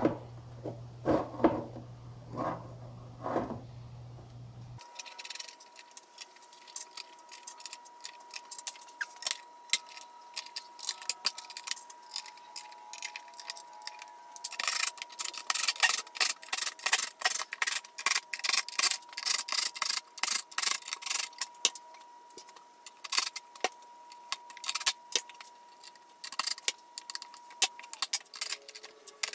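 Small metal bolts clicking and clinking as they are handled and set one by one into the holes of a steel seat mounting plate. The clinks come thickest through the middle stretch.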